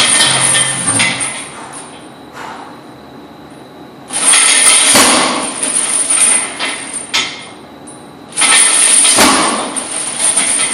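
Heavy steel lifting chains hung from a loaded barbell clanking and rattling against the platform as the bar is lowered and raised through stiff-legged deadlift reps: three long bouts of metal clatter, a few seconds apart.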